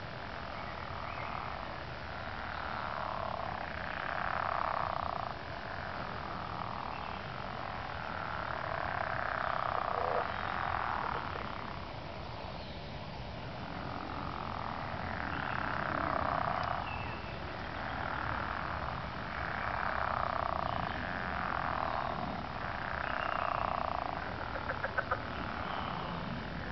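Early-spring frog chorus: many frogs calling at once in a guttural, throbbing mass that swells and fades in waves about every two seconds. A quick run of clicks comes near the end.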